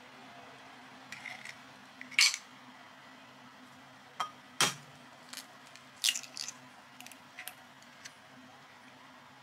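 Eggshells clicking, tapping and crackling against glass bowls as eggs are cracked and the yolks separated by hand: a handful of sharp taps and cracks, the loudest about two seconds and four and a half seconds in, over a faint steady hum.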